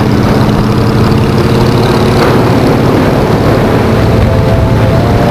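Kawasaki ZZR1100's inline-four engine running steadily, its pitch rising a little near the end.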